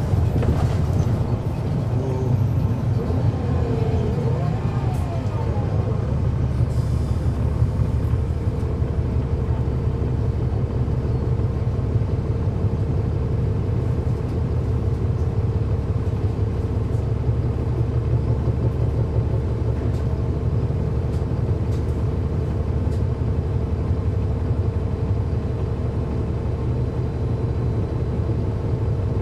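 Cummins ISL9 diesel engine of a 2009 NABI 40-foot transit bus running steadily, heard from on board: a low drone with a steady whine over it.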